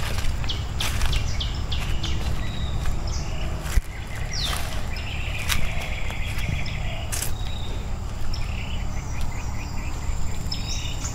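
Outdoor ambience: short bird chirps and a buzzing insect call over a steady low rumble on the microphone, with a few sharp knocks, the loudest about four seconds in.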